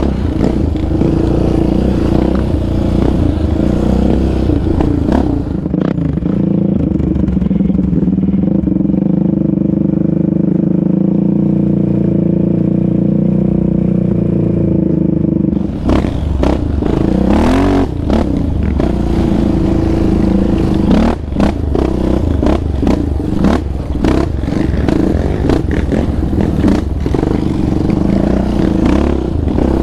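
Yamaha Raptor 700R quad's single-cylinder four-stroke engine running under throttle on a bumpy dirt trail, with the chassis rattling over the ground. For about ten seconds in the middle the engine note is steadier and smoother. Then the rattling returns and the engine revs up and down.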